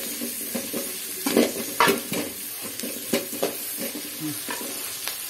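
Sliced onions and carrots sizzling in oil in a metal kadai as a perforated metal spoon stirs and scrapes them against the pan, with a few sharper knocks of the spoon on the pan about one and a half to two seconds in.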